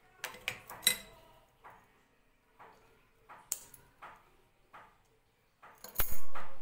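Small metallic clicks and clinks of pliers working a coil of wire being cut into rings for riveted mail, with a sharp snap, the loudest sound, near the end.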